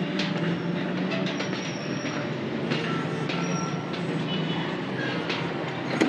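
Steady mechanical rumble with short, thin, high squealing tones now and then.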